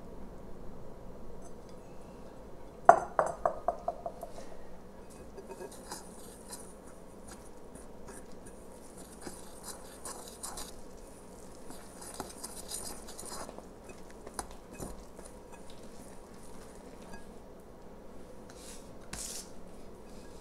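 A wire whisk clinks against a glass mixing bowl in a quick run of ringing strikes about three seconds in. Then it scrapes and rustles softly as it stirs the wet mix of water, oil and molasses into rye flour, forming a stiff, shaggy dough.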